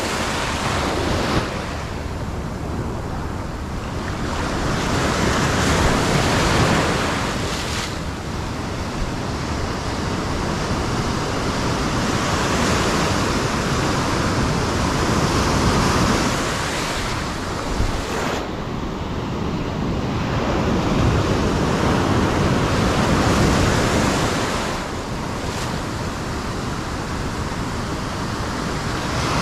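Ocean surf breaking and washing up the beach, a steady rush that swells and eases every several seconds as each wave comes in.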